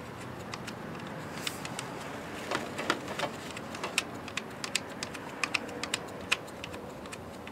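Light, irregular clicks of a socket ratchet and extension as the ignition coil's hold-down bolt is run back in, a few clicks a second, starting about a second and a half in and stopping shortly before the end.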